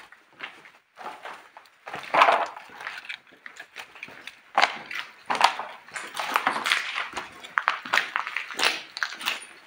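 Footsteps: an irregular run of sharp knocks and scuffs, louder from about two seconds in.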